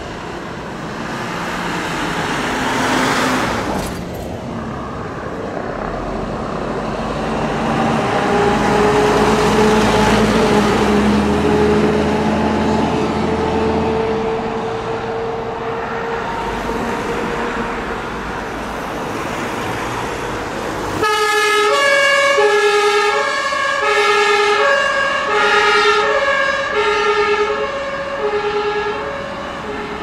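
Road traffic with truck engines running, then, starting suddenly about two-thirds of the way in, a German emergency vehicle's two-tone siren (Martinshorn) alternating between two pitches.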